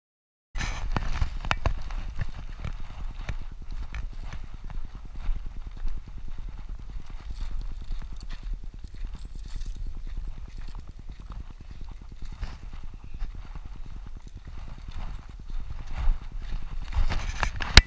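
Steady rhythmic footsteps on a dirt trail, mixed with rustling and knocking from a hand-held action camera, starting abruptly about half a second in and growing louder near the end.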